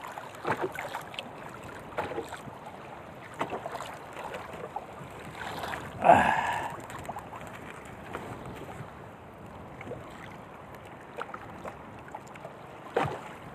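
Sea water lapping against a small outrigger boat, with wind and scattered light knocks from handling the fishing line and bait in the boat. A louder, brief sound comes about six seconds in.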